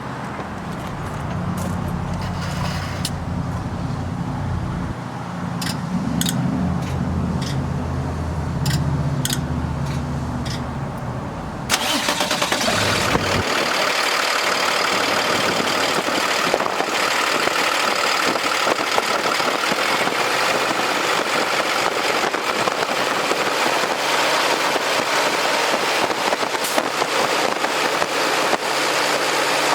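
Cummins B6.7 diesel engine of a dump truck running steadily at idle. About twelve seconds in, the sound cuts abruptly to a louder, steady rushing noise that lasts to the end.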